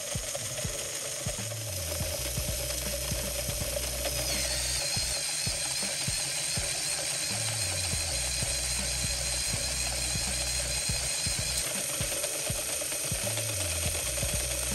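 LEGO Technic electric motor driving a plastic geartrain and brake disc: a steady mechanical whirr with gear clatter, brighter from about four seconds in until about twelve seconds. Background music with a slow repeating bass line runs underneath.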